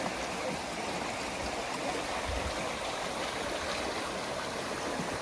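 Steady rushing of running water, like a stream flowing.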